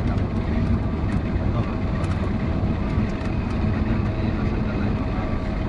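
Single-engine light aircraft's piston engine and propeller running steadily, heard from inside the cockpit as the plane rolls along the runway.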